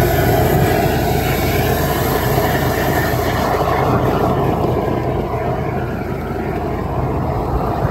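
High-pressure drain jetter running steadily, a constant engine-like drone, as its hose with a rear-facing-jet nozzle is fed up a grease-lined kitchen waste pipe to scour the pipe walls.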